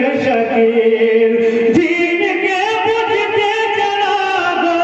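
A man singing a naat into a microphone through a public-address system, holding long, drawn-out melodic notes that slide between pitches. A single short click comes about two seconds in.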